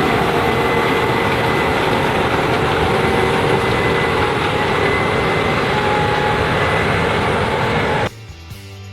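Case IH 8260 Axial-Flow combine running steadily while harvesting corn: a dense engine and threshing din with a faint high whine over it. It cuts off abruptly near the end, and music begins.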